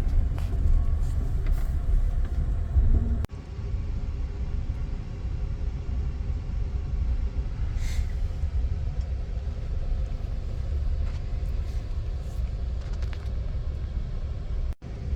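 Steady low rumble of a passenger train rolling as it slowly gathers speed, heard from inside the car. The sound drops out for an instant about three seconds in and again near the end.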